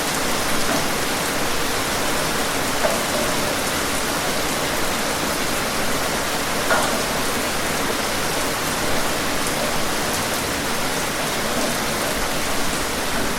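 Steady rain falling and pattering on surfaces, with a few louder individual drips now and then.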